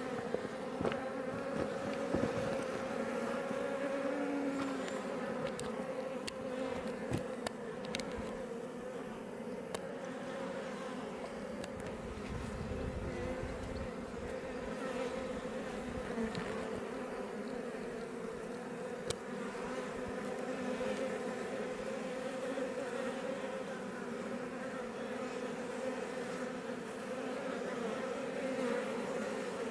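Iberian honey bees buzzing around a Langstroth hive: a steady, many-voiced hum, with a few brief clicks here and there.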